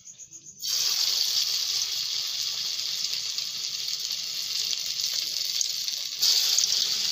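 Hot oil in a kadai sizzling as a raw-banana-and-egg ball is dropped in to deep-fry: a loud, steady hiss that starts suddenly about a second in. It swells louder near the end as a second ball goes into the oil.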